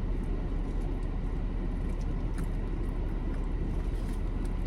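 Steady low rumble of a car, heard from inside the cabin, with a couple of faint clicks.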